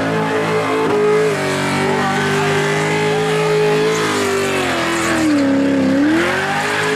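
Car engine held at high revs during a burnout, with tyre noise under it; the revs sag about five seconds in and climb back.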